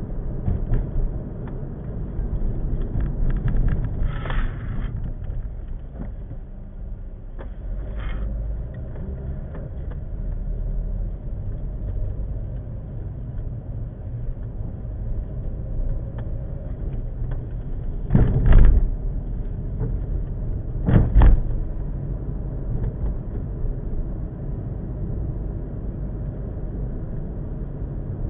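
A car driving slowly, heard from inside the cabin: a steady low rumble of road and engine, broken by a few short thumps as it rides over bumps in the cracked, patched pavement, the loudest two near the end, a few seconds apart.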